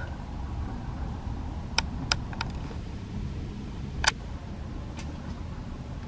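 Steady low rumble of a Ford V10 gasoline motorhome driving, heard from inside the cab, with a few light clicks.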